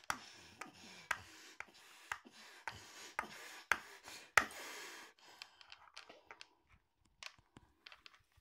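Soft slime being squeezed and kneaded by hand, giving faint irregular squelches and small sticky pops. After about five seconds it turns quieter, with only a few scattered clicks.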